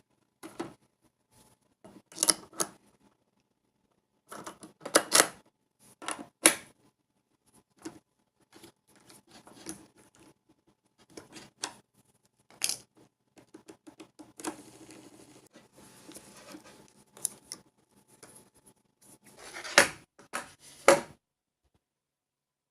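Hands working on a skateboard's trucks, wheels and hardware: scattered clicks and knocks of metal parts and tools, with a stretch of soft scraping about two-thirds of the way through.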